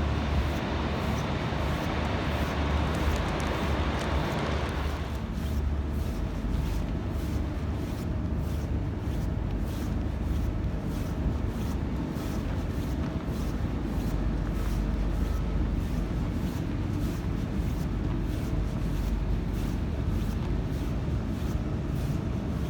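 Steady low mechanical rumble and hum, with a hiss above it that drops away about five seconds in.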